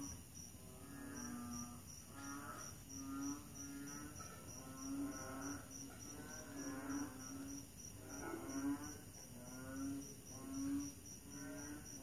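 Frogs calling with low, repeated croaks, about one a second, over crickets chirping in a high, even pulse about three times a second.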